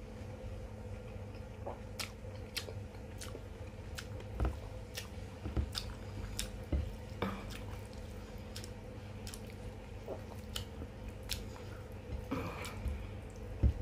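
A person chewing chicken machboos and rice close to the microphone, with scattered wet mouth clicks and smacks at irregular moments, over a faint steady hum.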